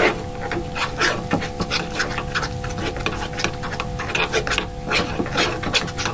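Metal spoon stirring and scraping a thick butter-and-flour roux around a small saucepan, in repeated irregular strokes a few times a second, over a faint steady hum.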